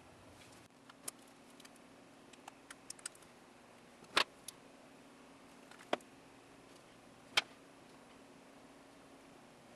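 Small machined aluminium parts handled on a bench: a scatter of light clicks and taps, with three sharper knocks about four, six and seven and a half seconds in as pieces are set down and fitted together. A faint steady hum lies underneath.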